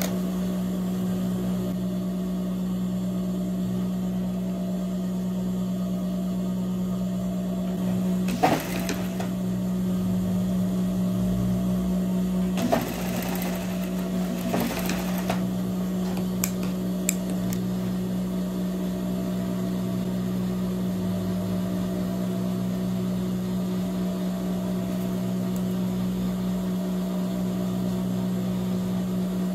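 Industrial lockstitch sewing machine (Juki DDL) with its motor humming steadily. Short noisier bursts come about eight seconds in and again between about twelve and fifteen seconds, as the fabric is worked at the needle.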